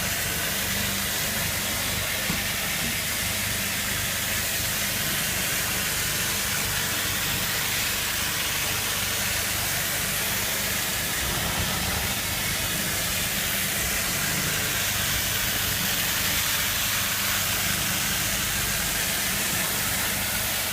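Pressure washer spray hissing steadily on flagstone, over the low steady hum of its motor.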